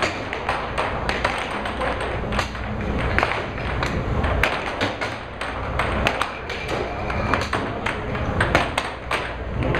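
Air hockey puck clacking off the mallets and the table rails in a fast, irregular rally, over the steady hiss of the air table.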